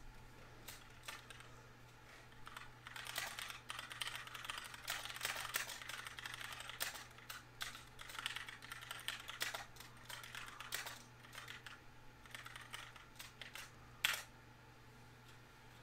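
Typing on a computer keyboard: irregular flurries of keystrokes, with one sharper click near the end, over a faint steady low hum.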